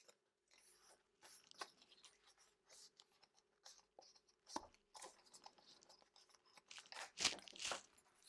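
Faint rustling and scraping of a strip of cardstock being folded by hand along its score lines, in short irregular bursts, the loudest papery scrapes about seven seconds in.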